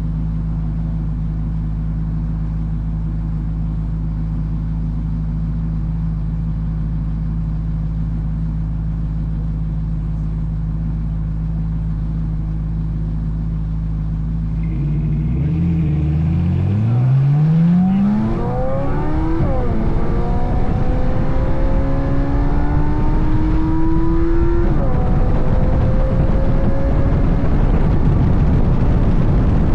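C8 Corvette Z06's flat-plane-crank V8 idling steadily, then pulling away hard from about halfway. The engine note rises, drops at two upshifts and climbs again, with a rushing noise building as the car gathers speed.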